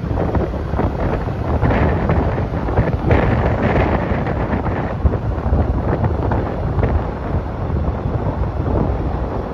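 Wind buffeting the microphone while moving along a road, a steady low rumble with a few brief gusts.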